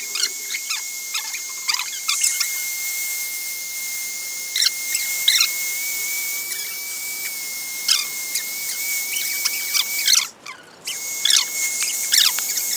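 Handheld electric hair dryer blowing with a steady hiss and a high whine, dropping out for under a second about ten seconds in. Over it a wet Pomeranian puppy gives repeated short, high, falling squeals and whimpers.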